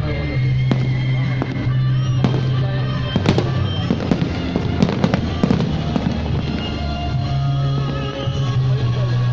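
Fireworks display set to music: shells bang and crackle over a steady musical soundtrack, with a dense cluster of sharp bangs in the middle and faint whistling glides.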